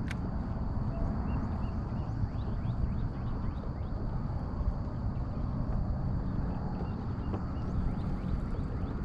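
Wind rushing over the microphone and small waves lapping against a kayak hull, with many faint bird chirps and a faint steady high whine.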